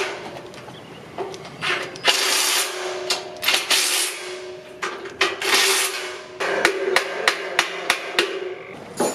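Hammering and metal clanking on sawmill parts: several clattering stretches, then a quick run of sharp strikes in the second half, over a faint steady hum.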